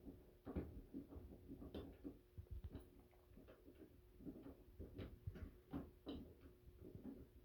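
Faint, irregular light knocks and clicks, about two or three a second, over a steady faint hum.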